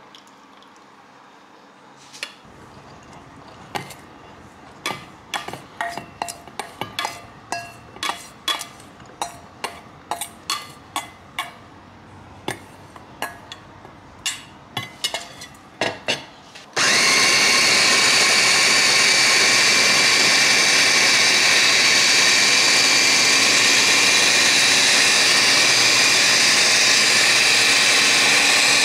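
A run of irregular sharp clicks and knocks, then about seventeen seconds in an electric food chopper starts and runs steadily at high speed, its blade grinding soaked dried shrimp to a fine floss.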